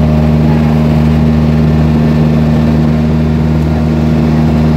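Outrigger boat's engine running steadily under way, a loud unchanging drone, with water rushing along the hull.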